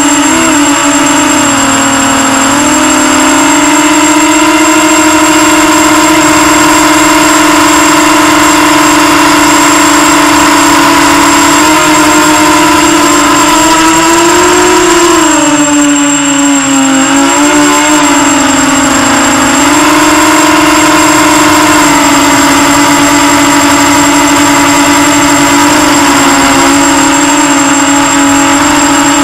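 FPV quadcopter's brushless motors and propellers whining as heard from the onboard camera. The pitch holds mostly steady and dips and rises with the throttle a few times, most around the middle, over a constant high-pitched tone.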